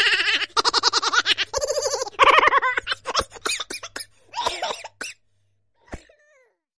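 A person laughing loudly in rapid bursts, breaking into scattered short bursts and stopping about five seconds in. A click and a short falling chirp follow near the end.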